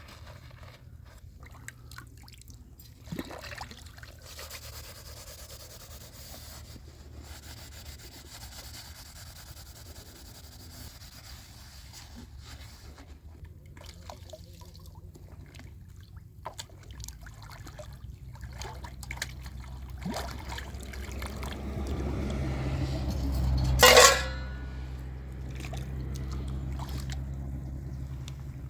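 Water trickling and splashing over a steady low hum, with small knocks scattered through; it builds up gradually to one brief loud splash about three-quarters of the way in, then settles back.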